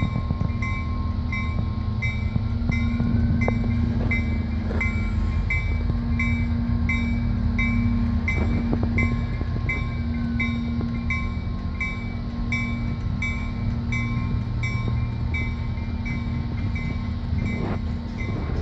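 An EMD SD40-2 diesel-electric locomotive's two-stroke 16-cylinder engine running with a steady low rumble as the locomotive rolls slowly along. A bell rings steadily about twice a second, and there are a few knocks from the wheels on the track.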